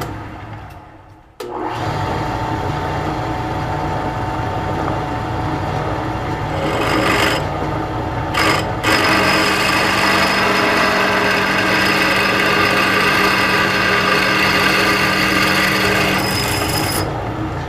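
Drill press running with its bit cutting into steel plate, a steady grinding scrape over the motor's hum; it starts about a second and a half in, falters briefly midway, and stops near the end.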